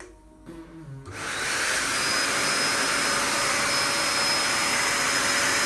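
An electric blower appliance switches on about a second in and runs steadily, a loud rushing whoosh with a thin high whine.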